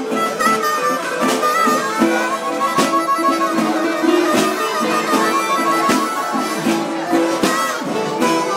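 Harmonica played with cupped hands: a run of held notes that waver and bend, over a steady beat of sharp knocks about one every three-quarters of a second.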